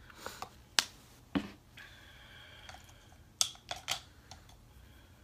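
Small objects being handled: a few sharp clicks and taps, with three in quick succession about three and a half seconds in.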